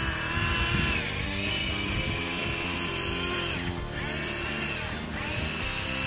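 Small electric gear motor of a remote-control model tractor whining as it pulls a loaded trolley, rising in pitch as it spins up and dropping away a little before four seconds in, then starting again about five seconds in, over background music.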